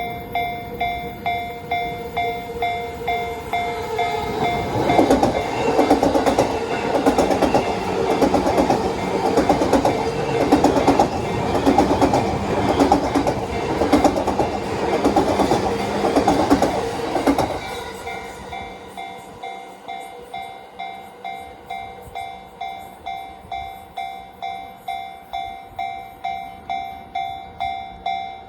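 Japanese level-crossing warning bell ringing about twice a second throughout, as a Yamanote Line electric train passes over the crossing from about four seconds in. The wheels clack over the rail joints for about thirteen seconds, and the bell keeps ringing after the train is gone.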